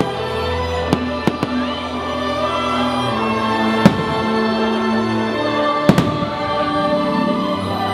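Fireworks shells bursting: about six sharp bangs, the loudest about four seconds in, over the show's soundtrack music of long held notes played through loudspeakers.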